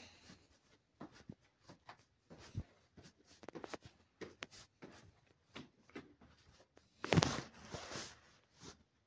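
Soft, irregular footsteps and handling rustle from someone climbing a stairwell with a phone in hand. A louder rustle of about a second comes around seven seconds in.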